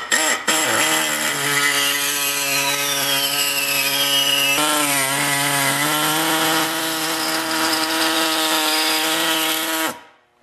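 Ingersoll Rand model 429 pneumatic reciprocating air saw cutting through a strip of steel about 1/16 to 1/8 inch thick held in a vise: a steady buzz with a hiss. Its pitch sags briefly about halfway through, and it cuts off suddenly just before the end.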